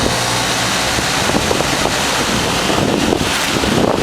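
Bard wall-mount heat pump running in cooling mode: a steady rush of air from its fan, with wind buffeting the microphone.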